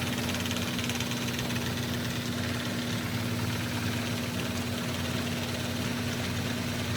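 Genie IntelliCode IS900A screw-drive garage door opener running, a steady motor hum with a low drone and a higher, even tone.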